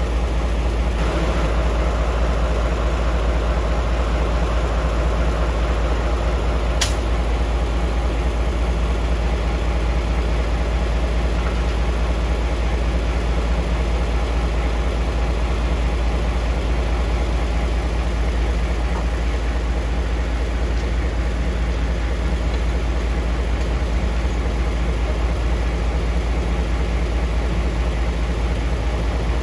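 Locomotive idling: a steady low engine hum, with one sharp click about seven seconds in.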